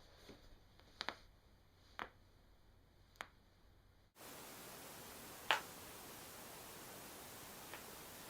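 Joints cracking during chiropractic adjustments: a few sharp pops close together in the first half, then, after a cut to a clip with more background hiss, one louder crack and a faint one near the end.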